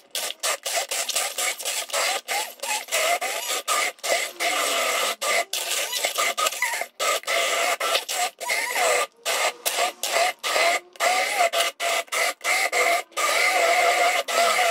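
Electric blender motor running, blending the cooked chili and garlic paste, its pitch wavering as the load changes. The sound is broken by many brief gaps.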